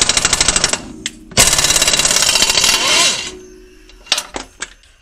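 Impact wrench hammering in two bursts, about a second and then about two seconds, as it undoes the bolts holding the old drum-brake backing plate on the spindle. A couple of metal clinks near the end.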